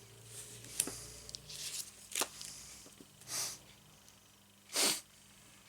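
Playing cards being handled and slid over one another: a few short swishes and light taps, the loudest swish near the end.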